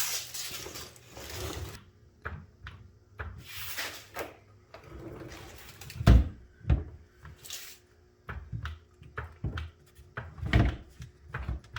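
A rustling hiss for the first couple of seconds, then scattered knocks and clunks of tools and parts being handled during work on a car's fuel tank. The loudest thump comes about six seconds in, with another strong one near the end.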